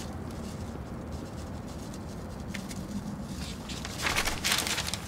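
Low steady background hum, then from about four seconds in a large newspaper rustles and crinkles loudly as it is handled.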